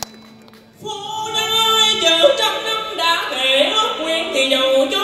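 A man singing vọng cổ (Southern Vietnamese cải lương song) into a microphone, a held and ornamented melodic line that begins about a second in.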